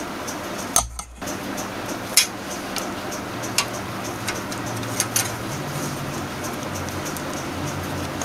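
Thick 4-gauge copper grounding wire being bent and handled by hand, giving a handful of sharp clicks and taps over a steady background hum.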